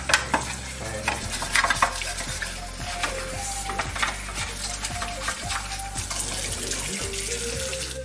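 Tap water running onto a plastic washing-machine detergent drawer while a toothbrush scrubs it, giving many short scratchy brushing strokes over the steady splash of the water.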